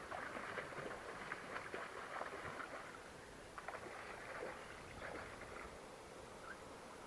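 Hooked brown trout thrashing and splashing at the water surface, in splashy bursts over the first five or so seconds before it settles.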